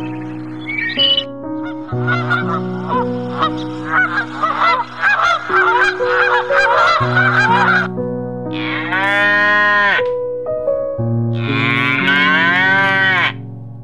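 A goose honking in a rapid string of short calls, followed by a cow mooing twice in long, drawn-out calls, over background music with sustained held notes.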